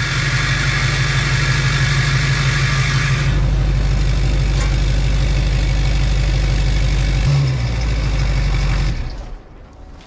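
LBZ Duramax 6.6 L V8 turbo-diesel running just after start-up on a rebuilt turbo with only a downpipe fitted, loud, with a rushing sound on top for the first three seconds before it settles; it is shut off about nine seconds in. The crew felt it sounded like a fixed-geometry turbo rather than a variable-geometry one, except for a moment when the vanes got oil pressure.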